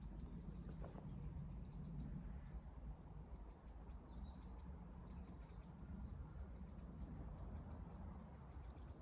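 Common kingfisher calling: short, shrill, high-pitched notes repeated in little clusters every second or so, faint over a low background rumble.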